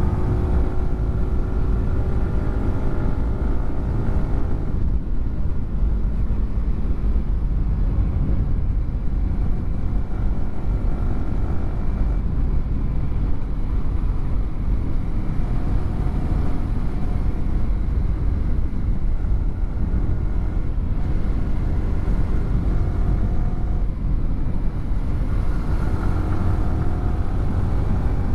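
Yamaha R15 V4's single-cylinder engine running through an aftermarket WRX GP3 exhaust while riding. Its note shifts in pitch in the first few seconds and again near the end, and a steady low rumble fills the stretch between.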